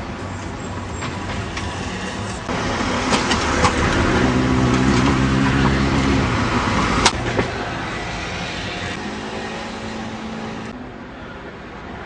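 Road traffic: cars and a van driving past on a town street, with engine hum swelling through the middle as a vehicle passes, then dropping back. A sharp click sounds about seven seconds in, and it goes quieter near the end.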